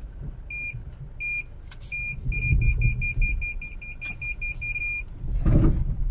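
Car parking-sensor beeper sounding a warning as the car nears an obstacle: three separate beeps, then a quickening run of about five beeps a second that stops about five seconds in. Under it is the low rumble of the engine and tyres on gravel, with a short thump near the end.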